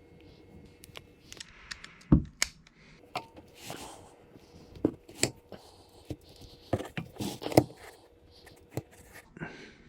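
Hand tools being handled at a motorcycle oil drain plug: irregular sharp clicks and short scrapes, with one heavier thump about two seconds in.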